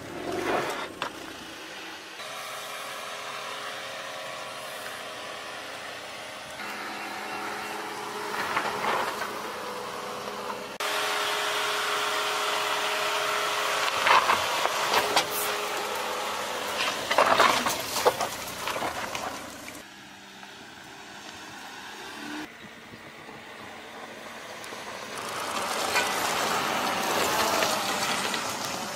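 Jeep Compass SUV engine running under load as its tyres crunch over dirt and rock on an off-road trail, with a few sharp knocks from the rocks. The sound changes suddenly several times as one short shot cuts to the next.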